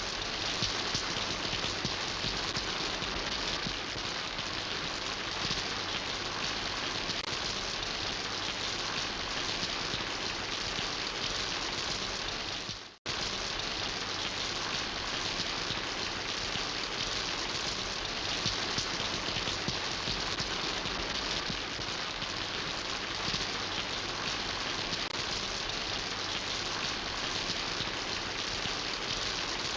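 Steady rain falling on surfaces, an even hiss of drops. About thirteen seconds in, the sound briefly fades away and cuts straight back in.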